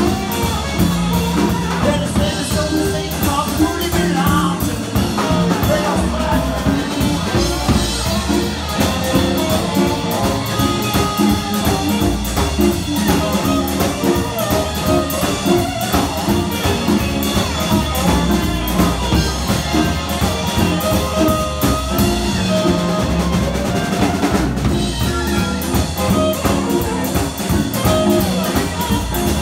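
Live electric blues band playing, with electric guitars and a drum kit keeping a steady beat.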